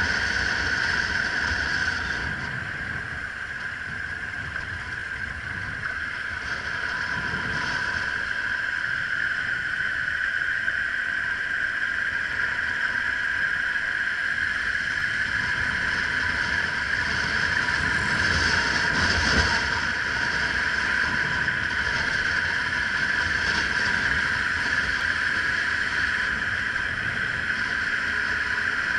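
Triumph Explorer three-cylinder motorcycle ridden slowly, its engine running with a steady high-pitched hum over a low, uneven rumble of tyres on cobblestones. The sound swells briefly about two-thirds of the way through.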